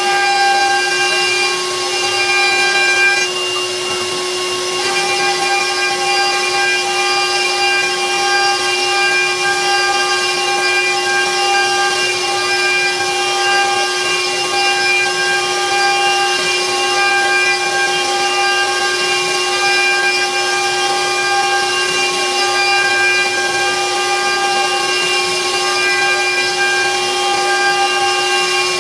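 CNC router spindle running with a steady high whine while its bit mills a round pocket into a wooden cutting board, with the rough noise of the cut. The upper part of the whine drops out briefly about three seconds in, then returns.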